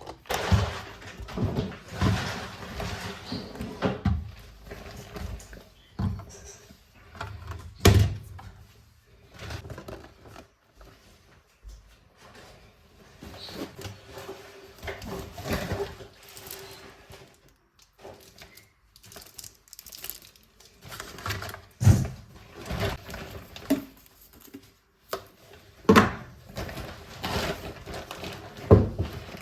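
Household handling sounds: irregular knocks, taps and thuds of objects being handled and set down, the sharpest about 8 seconds in and twice near the end, over a faint steady hum.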